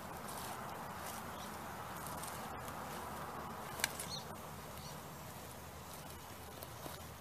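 Axial SCX10 RC rock crawler's electric drivetrain running slowly as the truck crawls over rock and dirt, with its tyres scrabbling on the ground. There is a sharp click about four seconds in.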